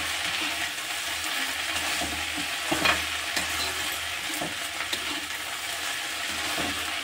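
Chopped okra frying in oil in a kadhai with a steady sizzle while a metal spatula stirs it, scraping against the pan with several louder scrapes and knocks, the loudest about three seconds in.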